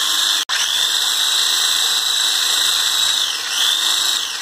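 Electric hand blender with a whisk attachment running in a glass jar, whipping chilled cream: a steady high motor whine whose pitch sags and recovers a couple of times as the load changes. It cuts out for an instant about half a second in.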